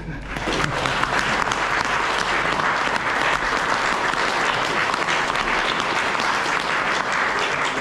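An audience of a few dozen to a hundred or so people applauding steadily, starting just after the opening and tailing off near the end.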